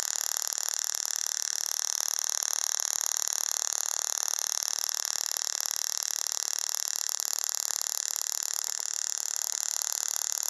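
Small tabletop Tesla coil running, its sparks arcing from the chrome top sphere to a wire lead held near it: a steady, rapid, even crackling buzz.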